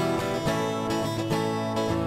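Background music: acoustic guitar strumming chords, with no singing.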